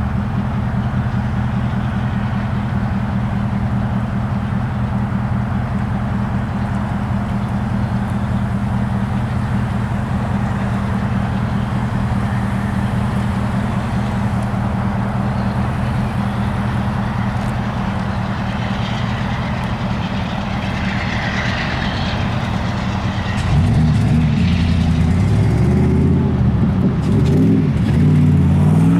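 Diesel locomotive engines running with a steady low drone, then louder with a wavering, shifting pitch about 23 seconds in as they rev up.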